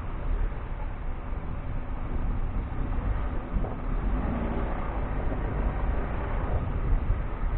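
Vehicle driving over rough ground: the engine runs with a steady low rumble.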